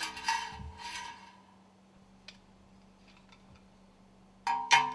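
Metal stuffing-box ring segments being handled: a scrape with a ringing clink about the first second, then two sharp ringing metallic clinks near the end, over a faint steady hum.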